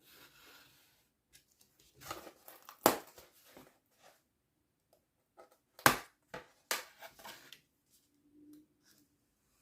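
Scratchy cutting and handling sounds from foam board being cut. Two sharp knocks about three seconds apart are the loudest sounds.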